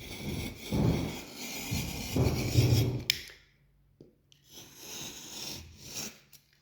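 Blade cutting and scraping along a cracked plasterboard joint in strokes: two louder strokes in the first three seconds, a short pause, then softer scraping.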